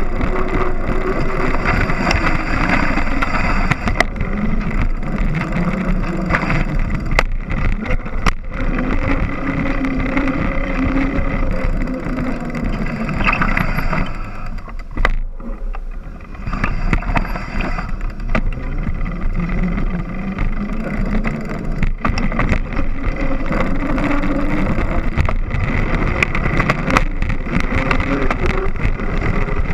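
Mountain bike tyre rolling on pavement, heard close up from a frame-mounted camera. Its hum slowly rises and falls in pitch with speed, mixed with frequent clicks and knocks from the chain and frame. It eases off briefly about halfway through.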